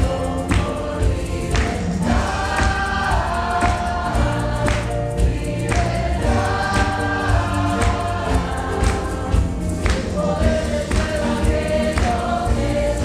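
A congregation singing a Spanish-language worship song together, with band accompaniment and a regular drum beat.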